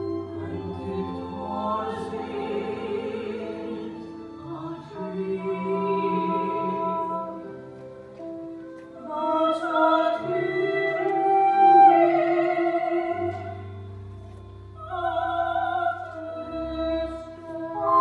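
Operatic singing over an orchestral accompaniment, in several long held phrases.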